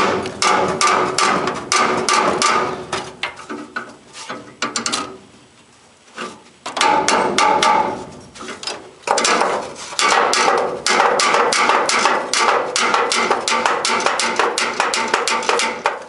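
Hammer tapping rapidly on a stuck steel gas furnace burner to knock it loose: quick metallic taps, about four or five a second, each with a short ring. The tapping comes in three runs, with a brief pause about a third of the way in and another just past halfway.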